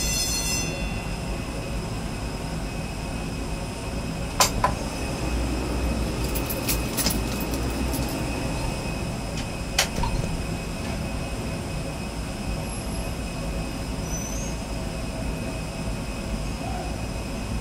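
Airbus A320 turbine running at the gate: a steady whine over a low rumble. A set of higher whining tones cuts off about a second in, and a few sharp clicks or knocks come through.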